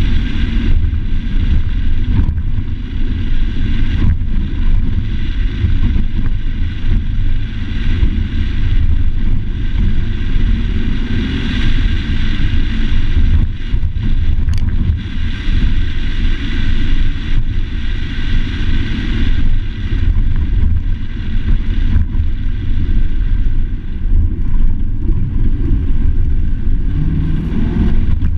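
Truck driving down a dirt road: a loud, steady low rumble of engine, tyres and wind.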